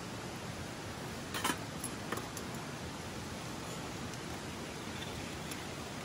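A few light metallic clinks of metal chopsticks against a steel camping cup, the loudest about one and a half seconds in. A steady outdoor hiss runs underneath.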